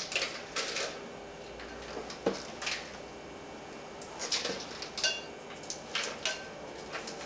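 Scattered clinks and scrapes of a knife against a glass mixing bowl as sticks of butter are unwrapped into it, a few clinks ringing briefly.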